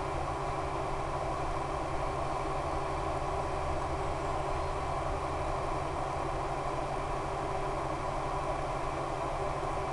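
Electric RC plane's brushless motor and 11x7 propeller running steadily in flight, heard as a constant mechanical drone with wind noise and a low hum.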